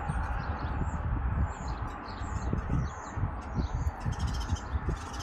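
Small birds chirping and singing, with many short, quick calls, over a gusty rumble of wind on the microphone.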